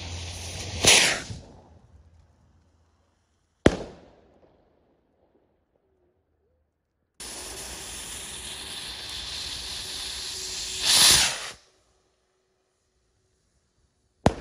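Two firework skyrockets, one after the other. Each hisses as it burns on its stick, takes off with a loud whoosh, and bursts in the air with a single sharp bang about three seconds later. The second bang falls at the very end.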